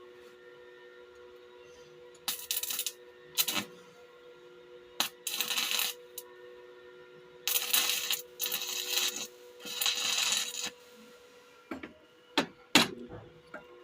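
Small metal nuts clinking and rattling together in a series of short bursts, then a few sharp clicks near the end. A faint steady hum runs underneath.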